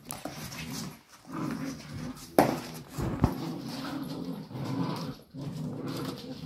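Puppies growling and whining at rough play, in short wavering bursts one after another. About two and a half seconds in comes a sharp, loud knock or yelp, and a smaller one just after three seconds.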